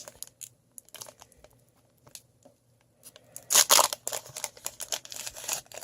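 Plastic wrapper of a trading card pack being handled and torn open: a few faint crinkles, a quiet pause, then a loud rip about three and a half seconds in, followed by crinkling of the wrapper.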